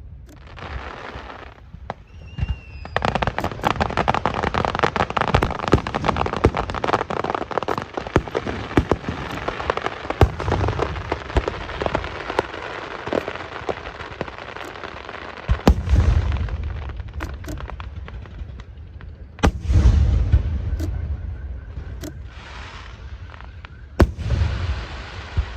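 Aerial fireworks show. A brief whistle about two seconds in, then dense, rapid crackling from many small bursts for about twelve seconds, followed by a few separate deep booms of shells bursting.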